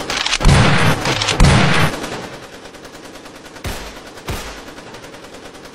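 Gunfire sound effects: a loud, rapid burst of shots lasting about a second and a half, then two single shots a couple of seconds later.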